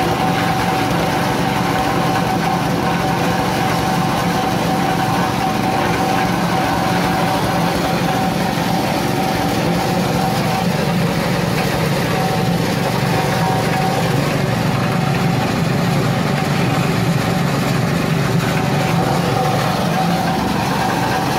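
Coconut-husk shredding machine running steadily, driven by a small petrol engine, shredding husk into fibre. It gives a continuous mechanical din with a steady whine over it.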